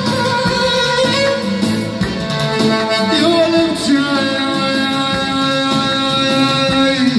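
Electronic arranger keyboard playing a Middle Eastern melody, with a man singing into a microphone over it in the second half, holding long notes.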